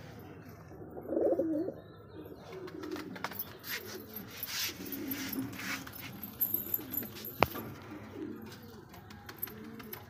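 Domestic pigeons cooing repeatedly in low, warbling calls, the loudest about a second in, with a single sharp click about seven seconds in.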